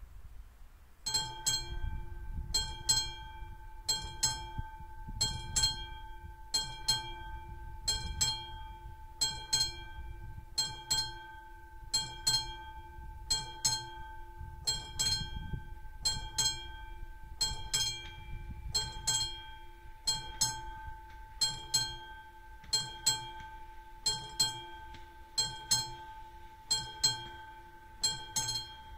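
Classic mechanical bell of an AŽD 71 level-crossing warning signal, starting about a second in and striking evenly at about two strikes a second, each strike leaving a ringing tone. It is the crossing's warning that a train is approaching.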